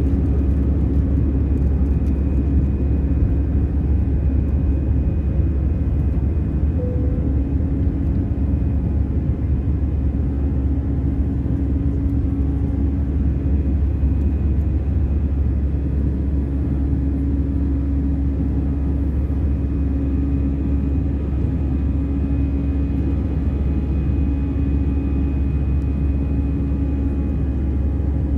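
Steady cabin noise of an Airbus A320 under power after takeoff: a deep rumble of engine and air, with a steady engine hum and a faint high whine running through it.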